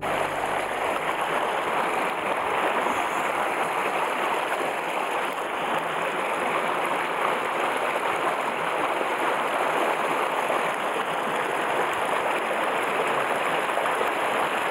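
Steady rush of a small, shallow mountain stream running over rocks and riffles.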